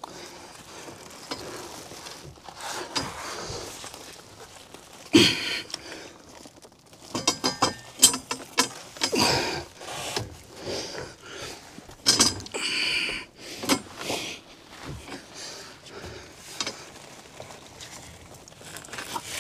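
Foam-insulated copper refrigerant lineset being dragged and bent by hand across wooden boards: irregular scraping, rustling and knocks, the sharpest knocks about five and eight seconds in.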